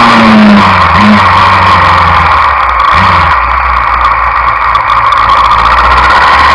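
Suzuki Inazuma 750's inline-four engine on a ride, its carburettors freshly adjusted: the engine note drops as the throttle is rolled off, rises briefly twice, about one and three seconds in, then runs steady at lower revs. Heavy wind rush over the microphone throughout.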